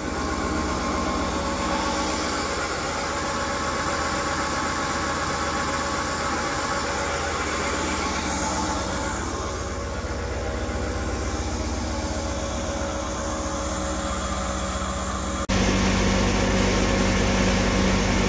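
Manure pump on a slurry tanker running steadily, engine-driven, as it sucks thick manure up from a barn cellar into the tank. About fifteen seconds in, the drone turns abruptly louder and deeper.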